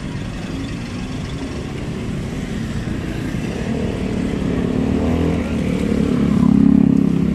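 A motor vehicle's engine running over street traffic noise, growing louder toward the end.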